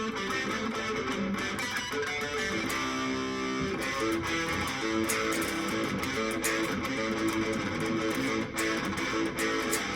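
Electric guitar played through an amplifier with an overdrive pedal, strumming and picking rock and roll chords and riffs, with one chord held briefly about three seconds in.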